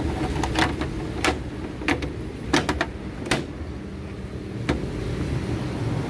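Plastic clicks and knocks of a Sharp washing machine's top cover panel being fitted back in place: a quick run of about ten sharp taps in the first few seconds and one more near the end, over a steady low background rumble.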